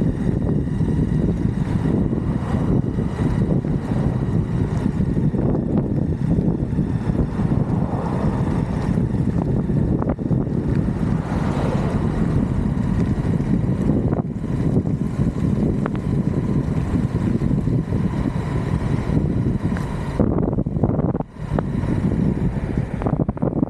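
Steady rush of riding wind on the microphone mixed with the rolling rumble of an electric skateboard under way, dipping briefly near the end.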